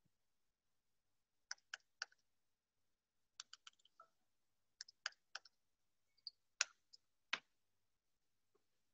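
Faint clicking at a computer: small clusters of two to four sharp clicks, about four clusters with quiet gaps between them, as from keys or buttons being pressed.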